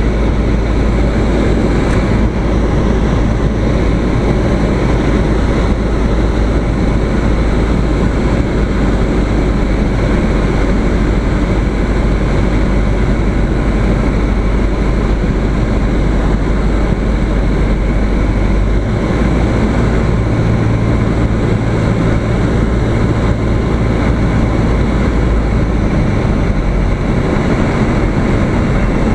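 Cabin noise of a light single-engine propeller airplane on final approach: the engine and propeller drone steadily under rushing air. The low drone changes pitch about two-thirds of the way through.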